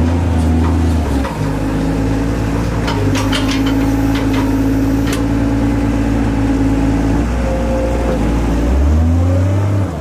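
New Holland wheel loader's diesel engine working under load as its grapple bucket digs into a silage pile. The engine note changes about a second in and revs up near the end as the loader backs away. A few sharp clicks sound in the middle.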